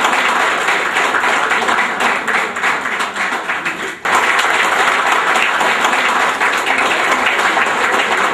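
Audience applauding steadily, with a brief dip about halfway through.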